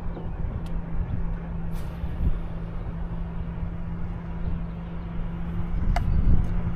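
A boat's motor running with a steady low hum and rumble. There are a few faint short clicks, one of them about six seconds in.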